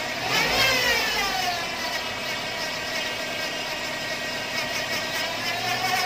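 Suzuki APV's engine running with a steady whining hum from its automatic transmission, its pitch sweeping up and back down once shortly after the start. The hum is put down to a damaged transmission oil pan and strainer starving the transmission of oil.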